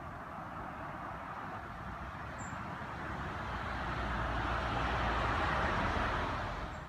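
A road vehicle passing by: a steady rushing noise that swells over several seconds and fades again near the end.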